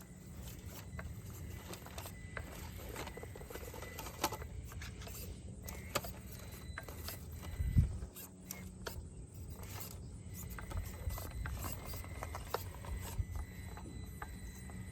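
Traxxas TRX-4M RC crawler's small electric motor and gears running steadily as it crawls, with scattered clicks and knocks of tyres and chassis on the course's obstacles and one louder thump about eight seconds in.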